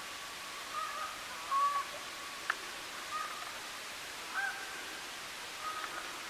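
A bird calling in short, clear notes, several times over a few seconds, over a steady hiss. There is one sharp click about two and a half seconds in.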